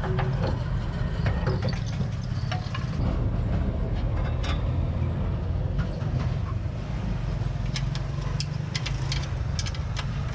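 Diesel truck engine idling steadily, with scattered sharp clicks and taps that come more often near the end.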